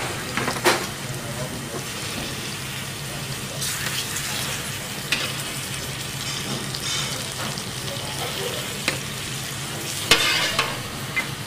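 A steady sizzling hiss and a low hum of a working kitchen, with a few sharp metal clinks of a spoon against a copper pot and steel tray as braised pork pieces are lifted out of their cooking liquid; the loudest clink comes about ten seconds in.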